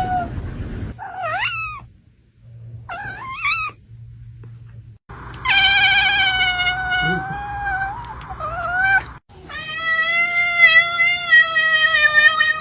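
Domestic cats meowing and yowling across a string of cut-together clips: two short calls that bend up and down in pitch, then two long drawn-out yowls with a wavering pitch.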